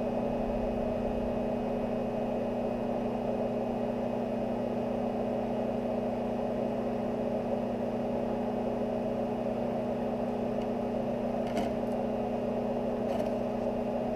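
Arc welder's transformer humming steadily while it drives current through a copper hot wire cutting styrofoam, with a few faint ticks near the end.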